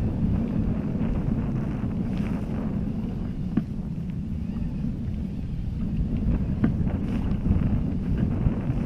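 Wind buffeting the camera microphone on an open boat at sea, a steady low rumble, with a few light clicks about three and a half and six and a half seconds in.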